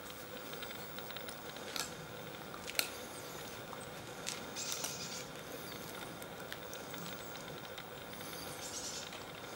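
Norwegian Elkhound sniffing and moving about on frosty grass: faint rustling with a few sharp clicks and short hissy sniffing bursts.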